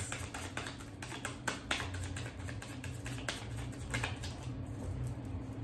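Tarot cards being shuffled by hand: a loose run of light, irregular clicks and snaps as the cards slap against each other.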